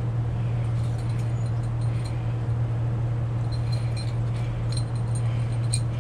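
Steady low hum of a running machine, constant throughout, with faint light clicks and jingles from about halfway in.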